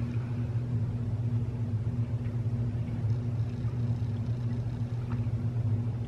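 Steady low room hum with a few faint mouth clicks from chewing a soft-baked snack bar.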